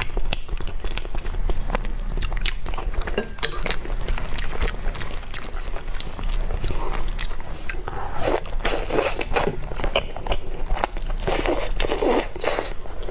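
Close-miked wet chewing and biting of gelatinous braised pork trotter and skin, a dense run of sticky smacking clicks. Louder bouts of squelching come twice in the second half, as the soft meat is pulled apart by hand and bitten.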